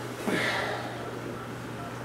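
A brief soft rustle of fabric and cushion about a third of a second in, as a man settles into an upholstered armchair, over a steady low hum.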